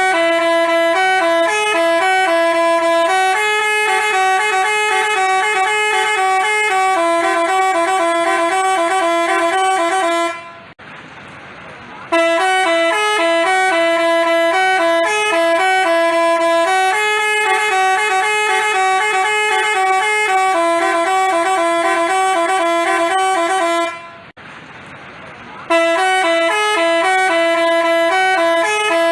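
A basuri telolet bus horn, a multi-tone melody horn, playing a tune in clear stepping notes. The tune repeats, breaking off for about a second and a half twice, about ten seconds in and again about twenty-four seconds in, before starting over.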